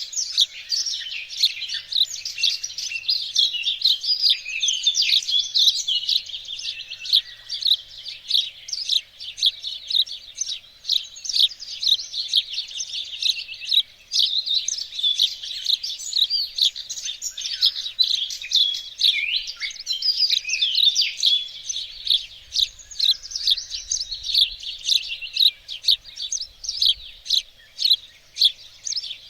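Songbirds singing in a garden: a dense, continuous stream of quick, high chirps and trills with no pauses.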